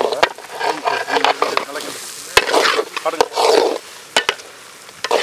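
A ladle stirring and scraping thick chicken liver masala around a metal pan as it fries and sizzles, with a few sharp clicks of the ladle against the pan.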